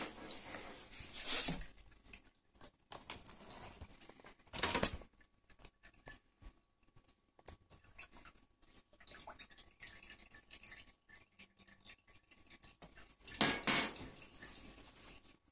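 Scattered faint clicks and rustles of handling, with three brief louder rustling noises: one about a second in, one near the middle, and the loudest near the end.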